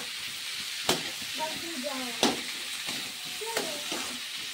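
Chopped cabbage, tomato and green chilli sizzling as they are stir-fried in a metal kadhai. A slotted metal spatula scrapes the pan and knocks against it about three times, the sharpest knock about two seconds in.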